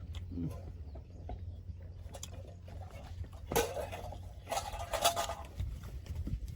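Close-miked eating of pork curry with rice: chewing and mouth sounds over a low steady hum, with two louder, short sounds at about halfway through and again a second later.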